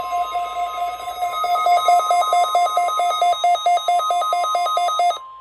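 NOAA Weather Radio 1050 Hz warning alarm tone, one steady pitch, received over the radio. Over it, a louder electronic beeping alternates between a low and a high pitch, quickens about a second in and cuts off about five seconds in.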